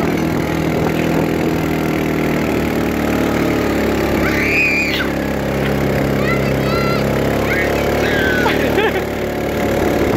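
ATV (four-wheeler) engine running steadily under load as it tows sleds through snow, with children on the sleds shrieking a few times in the middle.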